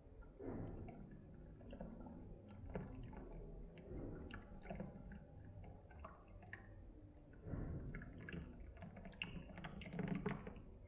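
Watermelon juice poured in a thin stream into a glass of ice cubes and fruit pieces: faint trickling and splashing with small irregular clicks.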